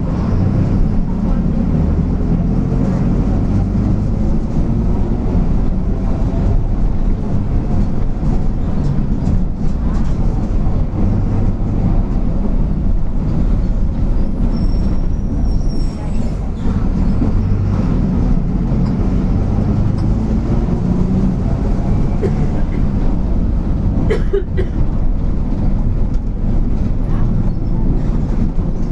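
Mercedes-Benz OF-1722M bus driving, heard from on board: a steady low engine drone with the growl of its driveshaft (cardan), rising and falling with speed.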